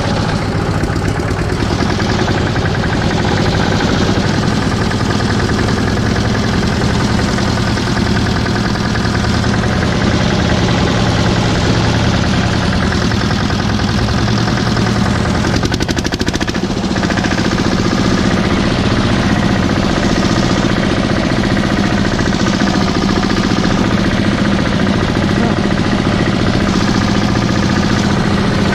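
A mini tractor's engine running steadily and loudly at low speed, close to the microphone, with a knocking beat as the tractor drives slowly over a dirt track. The sound dips briefly about halfway through.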